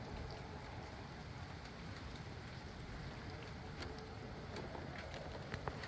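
Wind blowing with light rain falling: a steady rushing noise with a few faint, scattered drip-like ticks.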